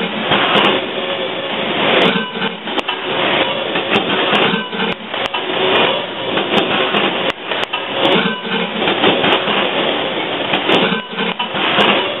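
Conveyor and print-and-apply labelling machine running: steady mechanical noise with irregular swells and scattered sharp clicks.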